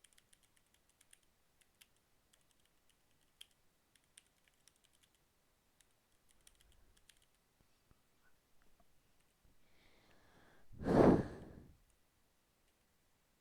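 Keys of a Redragon K552 mechanical keyboard with red switches being typed on: a quick run of light key clacks for the first five seconds or so, then only a few. About eleven seconds in comes a loud, sigh-like breath close to the microphone, the loudest sound.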